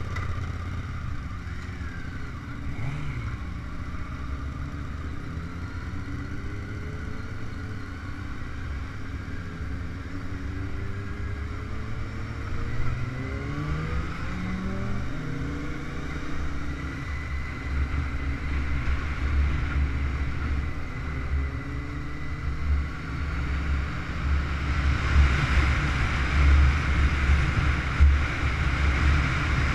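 Honda CBR919RR inline-four engine heard from onboard as the bike pulls away and accelerates, its pitch rising in several steps as it goes up through the gears. About 25 seconds in, wind noise on the microphone grows loud as speed builds.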